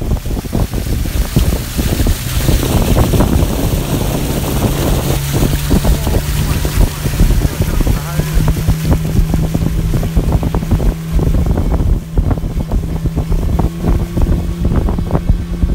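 Motorboat engine running at speed with a steady drone whose pitch rises a little about eight seconds in, and wind buffeting the microphone.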